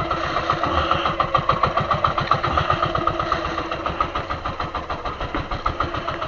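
Small fishing boat's engine running steadily at low speed, an even pulsing beat of about eight or nine a second.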